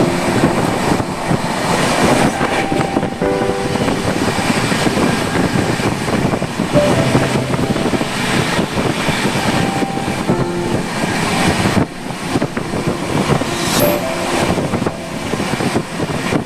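A passenger express train running at speed, heard from on board: continuous rolling rumble and rattle, with short steady tones coming and going over it.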